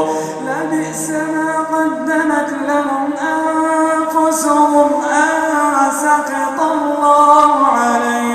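A male reciter chanting the Quran in melodic tajwid style: one unaccompanied voice holding long notes that slide up and down in pitch.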